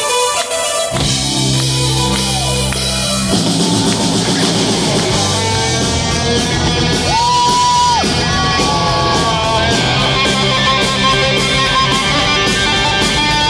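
Live hard rock band playing: electric guitar leads over bass and drum kit, with the full band coming in about a second in. A little past halfway the guitar holds one long note, bending into it and out of it.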